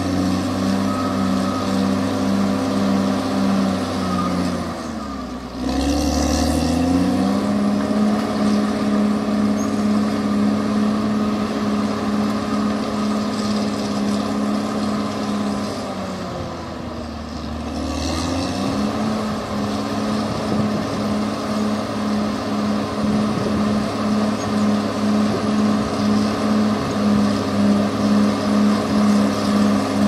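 CAT D6R XL crawler bulldozer's diesel engine running under load as the blade pushes soil, with a steady pulsing note. Twice, about five seconds in and again around seventeen seconds, the engine note drops and then climbs back.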